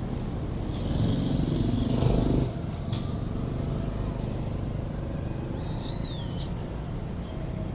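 Urban playground ambience dominated by a steady low rumble of city traffic, with a louder vehicle swelling past about a second in and cutting back down. A sharp click comes near the middle and a short high wavering chirp near the end.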